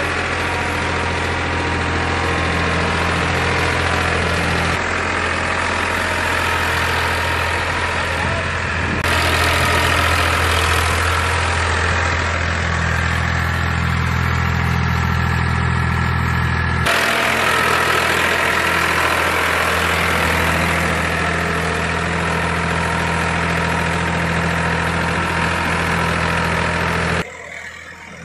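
Farmtrac 45 tractor's diesel engine running steadily under load while pulling a plough, with a few abrupt jumps in level and tone; it drops suddenly much quieter near the end.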